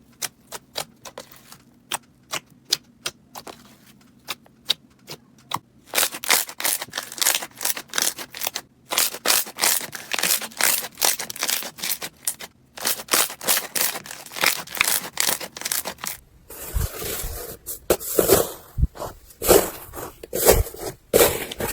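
Crunchy slime being handled, popping and crackling: sparse crisp clicks at first, dense crackling from about six seconds in, then a fuller, lower crackle near the end.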